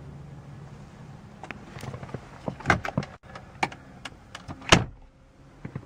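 Clicks and knocks from the plastic interior trim of a 2002 BMW M3 as it is handled. The glovebox lid and its latch are being worked, and the sharpest knock comes near the end.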